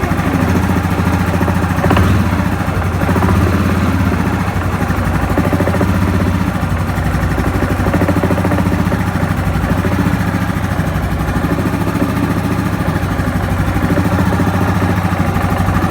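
Yamaha Grizzly 700 ATV's single-cylinder four-stroke engine idling steadily, with a knock that the owner places on the CVT (variator) side.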